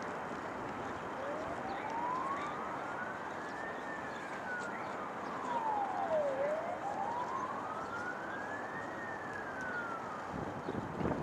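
An emergency vehicle siren wailing in slow sweeps, twice rising and falling, each rise or fall taking about two and a half seconds, over steady background noise. Near the end a louder low rumbling noise comes in.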